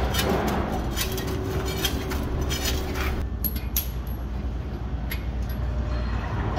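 Repeated light metallic clinks and taps of steel wheel nuts being handled and run on by hand onto the hub studs of a truck wheel, over a steady low hum.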